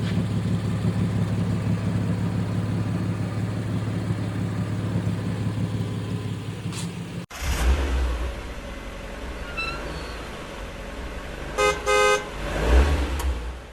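Nissan truck engine running steadily with a low, even hum; the truck is suspected of an exhaust leak. After an abrupt cut about seven seconds in, a lower vehicle rumble follows, with two short horn toots near the end.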